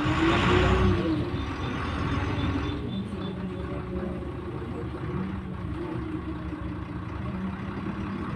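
Güleryüz Cobra GD-272 city bus running. In the first second or two a hiss surges with a brief rise and fall in engine pitch, then settles into a steady engine drone.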